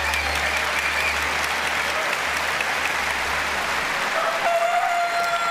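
Studio audience applauding steadily. About four seconds in, a held tone with one overtone joins the applause.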